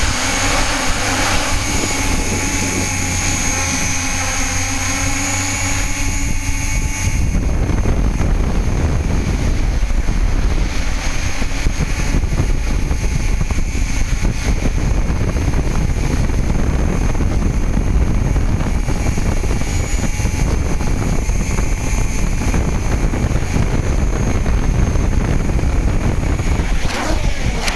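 Hexacopter's six electric motors and propellers whirring in a steady whine of several pitches. About seven seconds in, the sound changes to a rougher, lower rumble with the whine weaker, as picked up by the camera mounted on the craft.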